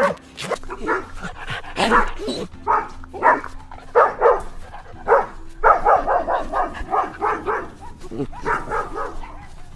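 A dog barking repeatedly in short bursts, about one or two barks a second.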